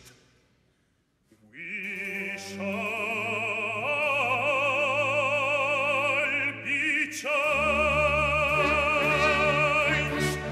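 Baroque oratorio aria for baritone, trumpet and orchestra. After a pause of about a second and a half near silence, a baritone sings long held notes with wide vibrato over the orchestra, and about seven seconds in the orchestra's deep bass comes in beneath him.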